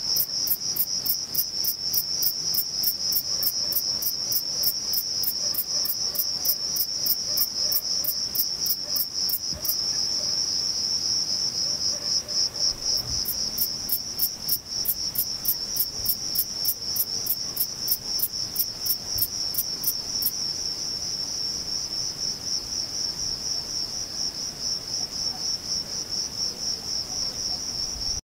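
Male Thyreonotus corsicus bush cricket stridulating: a rapid series of short, even chirps, about four a second, over a steady high-pitched buzz. The chirping breaks off for a few seconds about ten seconds in, resumes, and stops about twenty seconds in, leaving only the steady buzz, which cuts off abruptly just before the end.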